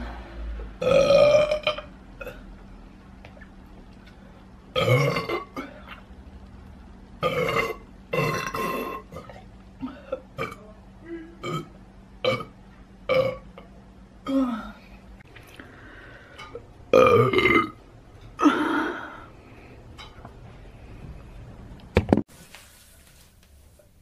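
A woman burping loudly again and again from soda gas: about eight big, drawn-out, pitched burps a few seconds apart, with smaller ones between.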